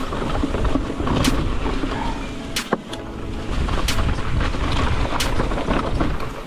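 Riding noise of an e-mountain bike on a trail, picked up by the camera's microphone: a steady rumble of tyres and wind, with sharp clicks coming about every second and a half.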